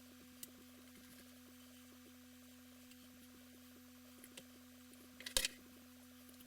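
A steady faint electrical hum with a few light clicks of parts and tools being handled; a short cluster of louder clicks comes about five seconds in.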